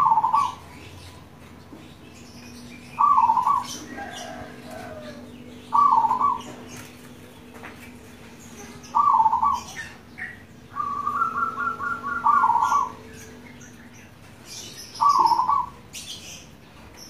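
Zebra dove (perkutut) cooing in its song: short bubbly coos about every three seconds. Once, midway, a rapid run of staccato notes leads straight into a coo. Faint chirps of other small birds sound in the background.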